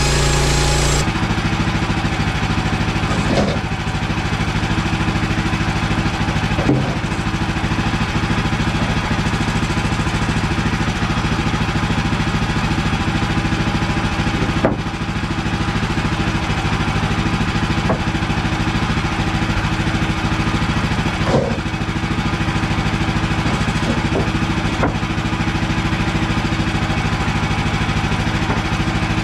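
Gasoline engine of a Woodland Mills portable bandsaw sawmill running steadily at working speed, with a few brief knocks along the way.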